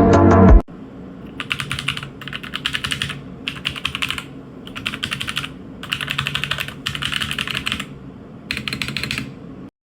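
Typing on a retro-style mechanical keyboard: fast clattering keystrokes in several bursts with short pauses between. Loud electronic music cuts off abruptly about half a second in.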